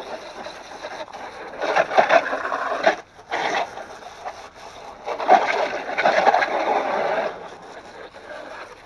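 Water spray rinsing the inside of a mud-covered RC truck chassis, in three bursts, the last and longest starting about five seconds in.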